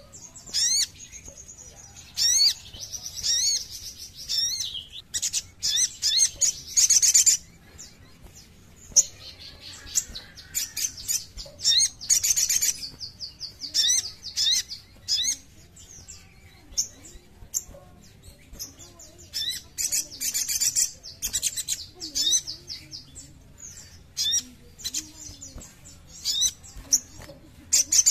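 A male sunbird singing: high-pitched, rapid chirps and twittering trills in repeated bursts, with short pauses between them.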